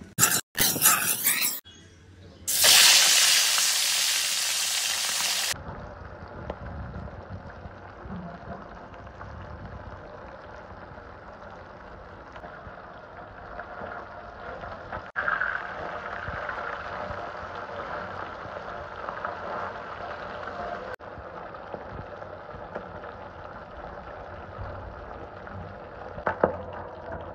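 Small tengra catfish frying in hot oil in a steel karai, with steady sizzling and bubbling. Near the start there is a very loud burst of sizzling that cuts off suddenly. Near the end there is one sharp click.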